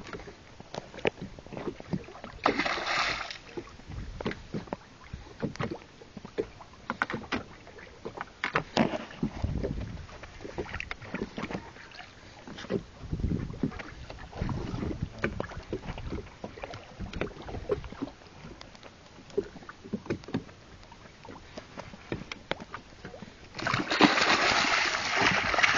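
Small fishing boat at sea: irregular knocks and low thumps, with a short rush of noise about three seconds in and a louder rushing, splashing noise near the end.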